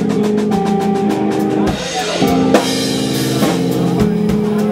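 A live band playing: electric guitar and bass holding notes over a drum kit. A short dip comes a little under two seconds in, followed by a cymbal wash.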